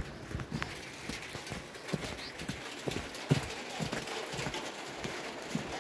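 Footsteps of a person walking over grass and earth: soft, uneven steps about one a second.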